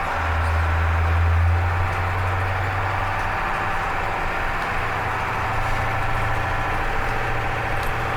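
School bus diesel engine running steadily, a little louder for the first second and a half, then settling into a slightly higher steady note about halfway through.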